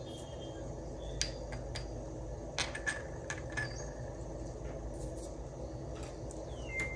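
Scattered light clinks and taps of small glass or ceramic tableware being handled, some with a brief ring, as salt and pepper are set out for a plate reading.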